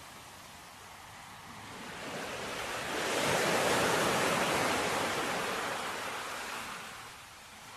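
Ocean surf: the rush of a wave that builds over a couple of seconds, peaks about halfway through and slowly fades away.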